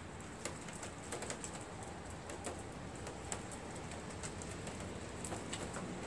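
Faint, scattered small clicks and taps from a hand working the metal oil drain valve and hose fitting on a lawn tractor engine, over a steady low background hiss.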